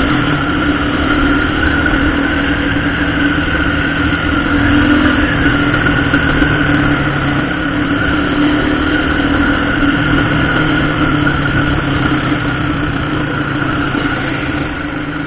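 A motorcycle's engine running steadily as it is ridden along through traffic, heard from the bike itself.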